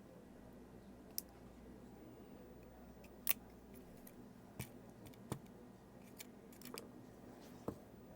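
Faint, sharp clicks of small metal tools on a watch module as its battery is taken out: about seven separate ticks and taps, the loudest about three seconds in.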